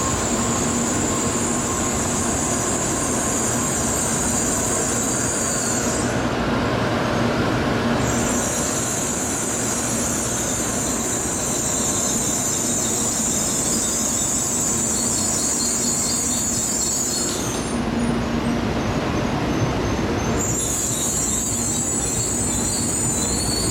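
N700A Shinkansen train pulling into the station, its cars running past with a steady rush of wheel and running noise. A high-pitched squeal runs over it and drops out twice, each time for two to three seconds.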